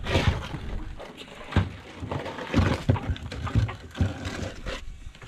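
Irregular knocks and scrapes on the floor of an aluminium dinghy as a big mud crab is grabbed and scrabbles against the hull, several sharp hits among them.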